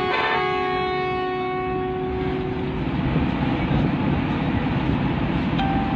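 A bus's multi-note horn blast cuts off about half a second in, and one low note lingers and fades over the next couple of seconds. Then comes a steady rumble of the bus's engine and tyres on the road.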